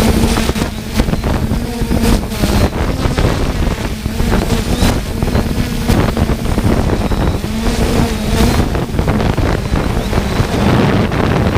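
Strong gusty wind buffeting the microphone, over a faint hum from the 3DR Solo quadcopter's motors that comes and goes.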